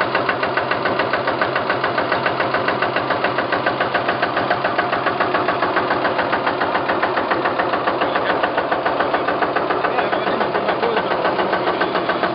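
Single-cylinder diesel engine built into a Vespa scooter, running steadily at idle with an even, rapid diesel knock.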